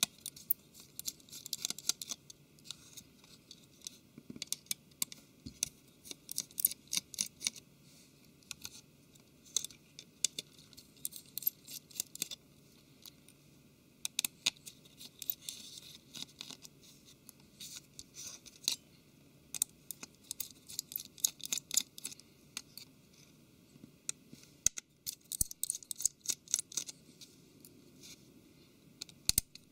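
A small Phillips precision screwdriver working out tiny tablet screws: clusters of quick, sharp clicks and scratches of the metal tip in the screw heads, with short pauses between screws.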